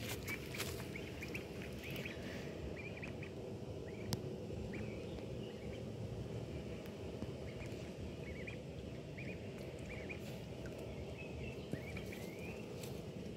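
Duckling peeping in short, repeated calls while splashing in shallow puddle water, with a few sharp splashes near the start. A steady low rumble runs underneath.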